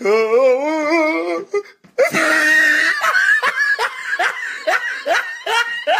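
Loud laughter. A long wavering vocal sound opens it, then after a short break it becomes quick repeated bursts of laughing.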